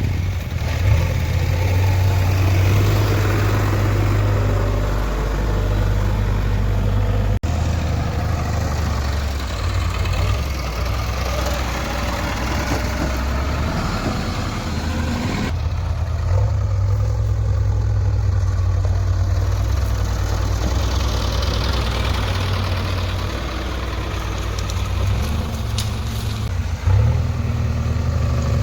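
Heavy diesel engine running steadily with a deep low drone, its sound changing abruptly twice.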